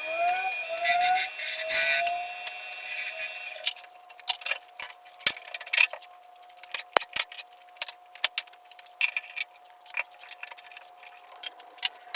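Wood lathe spinning a wet bowl blank with a steady whine that rises and settles about a second in, while a gouge hisses through the wood for the first few seconds. The lathe then runs on with scattered sharp clicks and ticks.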